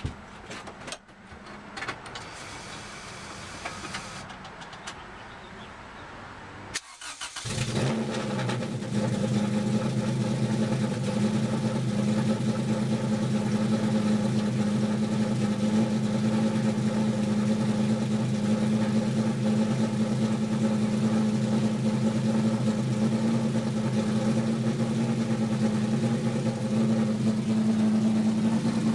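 Fully built Honda B18C (JDM GSR) four-cylinder engine on a cold start: it fires about seven seconds in and settles into a steady, loud idle.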